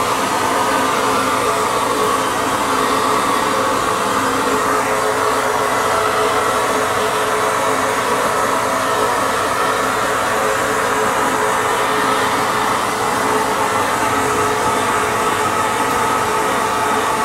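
Vapor blasting cabinet in use: the hand-held nozzle gives a loud, steady hiss of air and water-borne grit striking an aluminum motorcycle rear hub, with a steady hum of tones beneath it.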